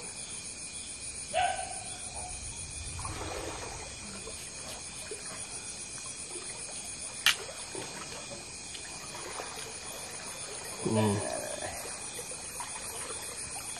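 Feet and a stick moving through shallow river water, with soft trickling and light splashing, over a steady chirring of night insects. A sharp click comes about seven seconds in, and short voice-like sounds come about a second in and around eleven seconds.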